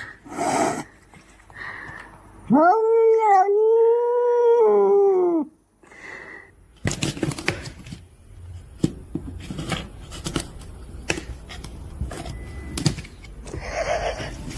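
A dog howling: one long, steady howl of about three seconds, a couple of seconds in, followed by a run of irregular clicks and knocks.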